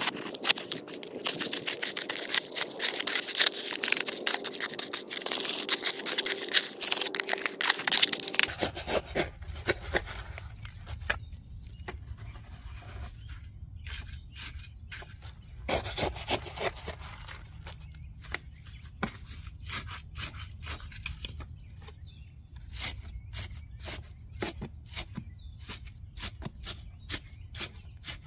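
Metal trowel scraping and stirring wet concrete mix in a plastic tub, in dense continuous strokes. After about eight seconds this gives way to sparser, quieter scrapes as the mix is pushed and packed under a condenser pad with a trowel and a wooden stick, over a steady low hum.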